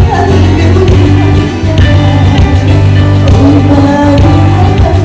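Music with a singing voice over sustained low bass notes.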